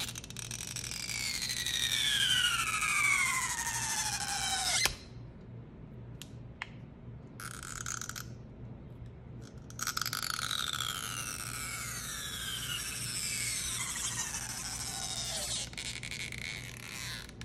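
Silicone stretch-release adhesive tapes under an iPhone 12 Pro Max battery squealing as they are pulled out. There are two long squeals, each falling steadily in pitch as the tape stretches: the first lasts about five seconds and cuts off suddenly, and the second starts about ten seconds in. A few faint clicks come between them.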